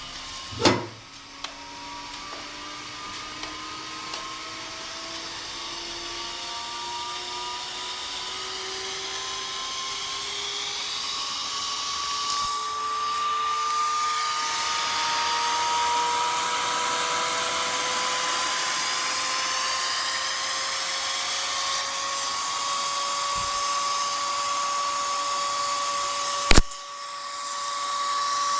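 Dell OptiPlex GX280 CPU fan spinning up: its whine rises slowly in pitch and grows louder for about twenty seconds, then holds at full speed. This is the jet-like full-speed fan noise the owner gets at power-on with no display, and it persists with only the power supply attached to the motherboard. A sharp click sounds about a second in and another near the end.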